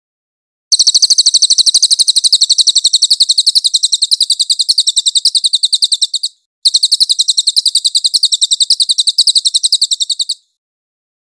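Crested jay (cililin) calling: a loud, rapid, even rattle of high notes, in two long runs with a brief break about six seconds in.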